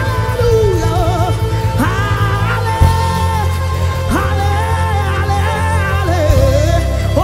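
Gospel praise music: sliding, wavering melody lines over a steady bass that changes note about three seconds in and again near the end.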